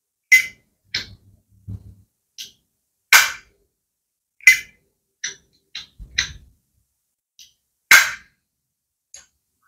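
Sharp metallic clicks and snaps from a Zippo-style metal lighter case holding a butane insert, about a dozen spread out, as the case and insert are handled. The loudest three come around three, four and a half and eight seconds in.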